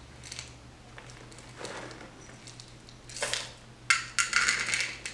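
Chocolate chips being poured, a quick run of many small hard clicks and patters lasting about a second, starting about four seconds in, after a short rustle.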